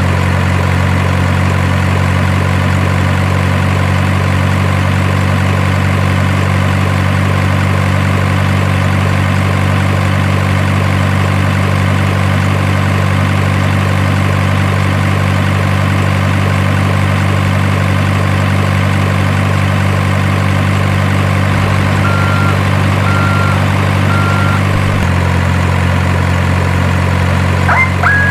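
Heavy diesel engine sound idling steadily, the kind played by an RC truck's sound module. About 22 seconds in come three short beeps at one pitch, like a reversing alarm, and the engine note shifts slightly soon after.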